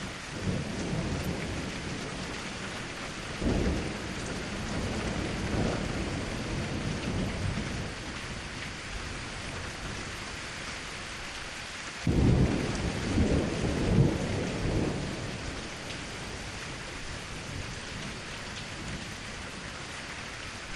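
Steady rain falling, with thunder rolling through it: a low rumble that swells about three seconds in, and a sudden clap about twelve seconds in that rumbles on for about three seconds.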